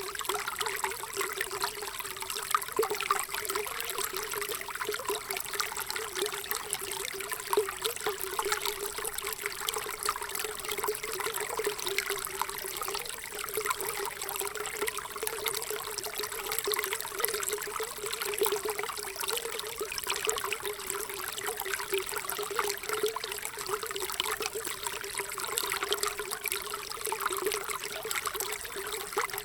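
Running water trickling steadily, a continuous babble of many small splashes that holds even throughout.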